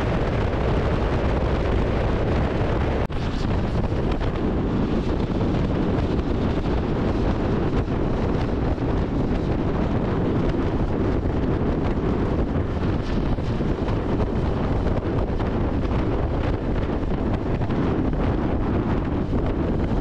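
Steady wind rush on the microphone of a motorcycle riding at speed, with the vehicle's running and road noise underneath. Loudness dips briefly about three seconds in.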